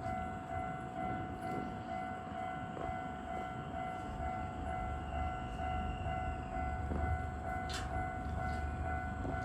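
Level crossing warning bell ringing steadily with its clanging tone, while a Keisei Chiba Line train passes the crossing with a low rumble that swells in the second half. A single sharp click comes near the end.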